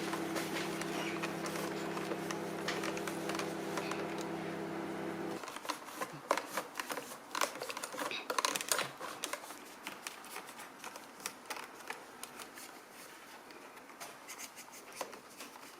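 A steady low hum cuts off sharply about five seconds in. After it come scattered light scratches and clicks: a microfiber cloth rubbing over and handling the plastic parts of a dismantled Dyson V6 vacuum as they are wiped clean.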